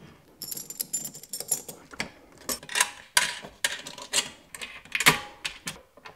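Irregular metal clicks, taps and scrapes as a metal cable clamp is fitted into a steel electrical box and the charger's cable and wires are pushed through it.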